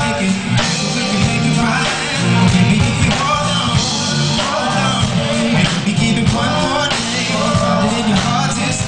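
Male R&B singer singing live over a live band, his phrases rising and falling over the band's steady backing.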